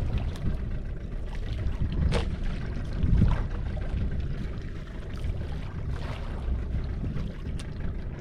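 Wind rumbling on the microphone over water noise on a fishing boat at sea, with a few light knocks scattered through it and one louder gust about three seconds in.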